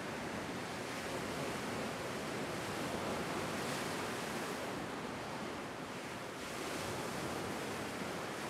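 Lake Superior waves breaking and washing over a rocky shoreline: a steady rush of surf that swells and eases slightly.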